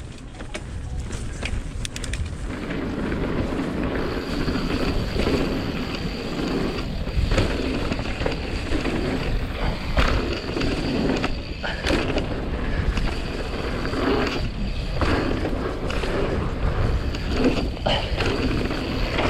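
Mountain bike riding fast down a dirt trail: knobby tyres rolling and skidding over hard-pack, with the bike's parts rattling and knocking over bumps and wind rushing over the microphone.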